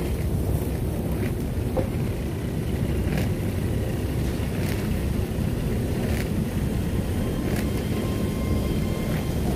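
Class 385 electric multiple unit moving slowly through a carriage washing plant: a steady low rumble from the train and the washer, with a few faint knocks along the way.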